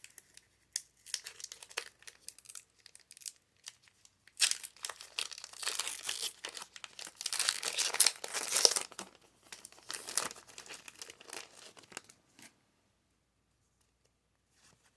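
Foil Pokémon booster pack wrapper being crinkled and torn open by hand: scattered crackles at first, then a dense run of crinkling and tearing in the middle, thinning out to a few rustles.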